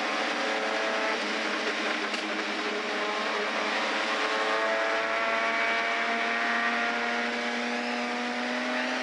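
Lamborghini LM002's 5.2-litre Countach V12 with six Weber carburettors, running under load, its note climbing slowly in pitch through the second half as the truck gathers speed. Heard from inside the cabin, with wind and road noise.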